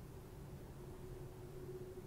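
Faint steady low hum of room tone with a soft sustained tone, and no clicks or knocks.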